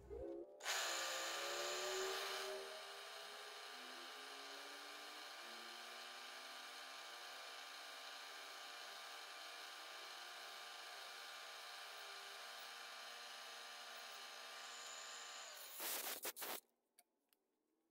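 Milling machine spindle running with a steady whine of many pitches as a two-flute 3/8-inch carbide end mill plunges a bore into a small part clamped to a fixture plate. The sound is louder for the first couple of seconds, holds steady, then comes a few short louder bursts near the end before it cuts off.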